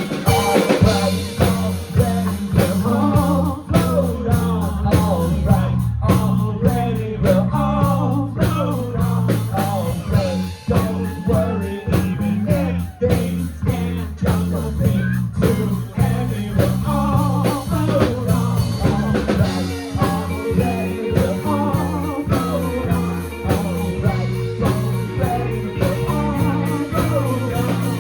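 Live rock band playing: drum kit, bass guitar and electric guitars, with a steady repeating bass line and a wavering lead melody over it.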